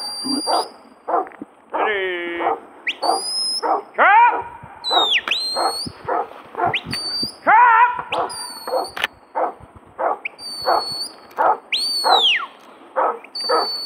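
A huntaway dog barking steadily, about two barks a second, as it drives sheep up the hill. The handler's high shepherd's whistle cuts in with short blasts every few seconds: most held flat, one falling, and one rising and falling near the end.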